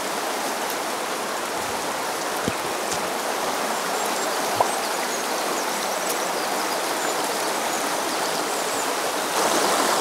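Shallow mountain stream rushing over rocks: a steady wash of water, louder from about nine seconds in, with a couple of faint clicks.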